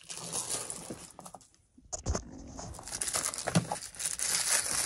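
Plastic release liner on a self-adhesive sound-deadening mat being handled and peeled back, crackling and rustling, with a brief lull about a second and a half in and a few sharp knocks after it.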